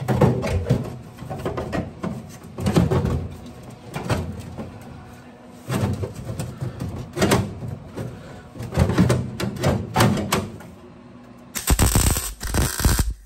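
Sheet-metal patch panel being fitted by hand against the car body, with irregular clicks, knocks and metal-on-metal clatter. About twelve seconds in, a welder strikes an arc for a short burst of crackling welding, a tack weld on the patch, that stops abruptly.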